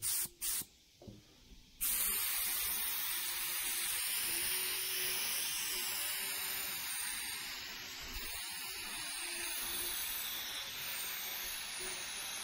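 Compressed-air gravity-feed paint spray gun (a cheap Harbor Freight gun) spraying paint in a steady hiss, starting about two seconds in after a few short clicks.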